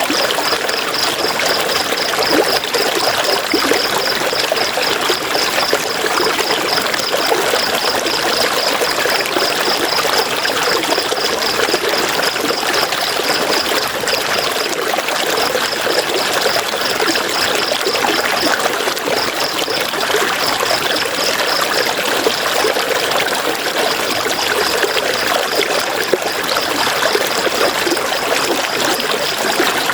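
River water flowing in a steady rush. A rapid, high-pitched pulsing chirp runs over it, dropping out briefly a few times around the middle.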